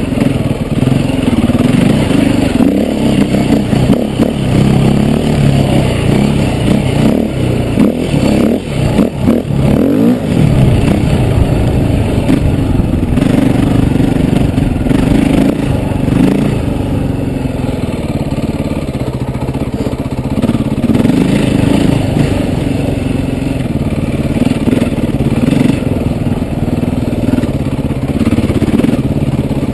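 KTM enduro dirt bike engine running under load and revving up and down as the bike is ridden over rough trail, with quick rises and falls in pitch about eight to ten seconds in. Some clattering from the bike over rough ground.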